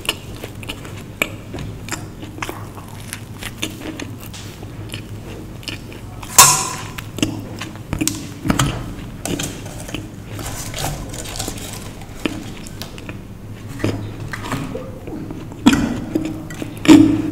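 Close-miked eating: chewing and wet mouth sounds with many small clicks. There are a few louder knocks against steel plates, the loudest about six seconds in and near the end.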